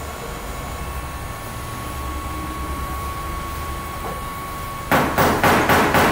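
Steady workshop hum with a faint steady whine; about five seconds in, a loud run of rapid sharp knocks, about four a second, starts abruptly.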